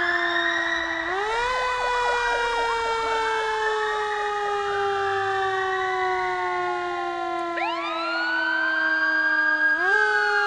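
Several police sirens wailing together, overlapping at different pitches. Each tone slowly falls, then jumps back up quickly, about a second in and again near the end, with a few quick up-and-down sweeps about three quarters of the way through.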